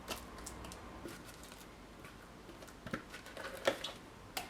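Faint clicks and soft taps of a utensil scraping blended shrimp paste out of a food processor bowl into a glass bowl, with a few sharper taps in the last second and a half.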